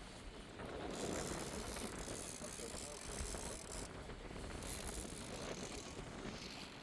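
Fishing reel clicking and ratcheting as a hooked striped bass is reeled in.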